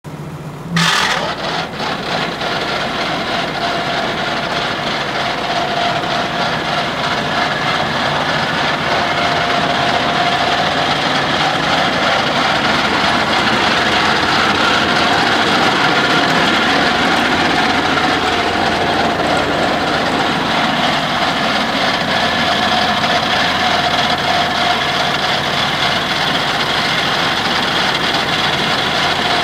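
Vicon DMP 2401 TC 8 ft disc mower conditioner running stationary off a tractor's PTO, its cutter bar and conditioner spinning with a steady mechanical drone and whine along with the tractor engine. A clunk about a second in, then the sound builds over the next few seconds and holds steady.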